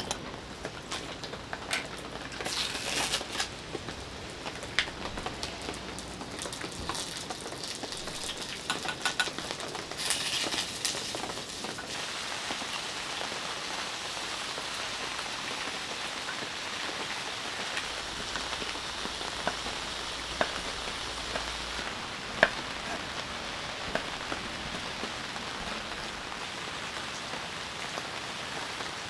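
Heavy rain falling, a steady hiss, with scattered clicks and knocks in the first dozen seconds and one sharp knock about 22 seconds in.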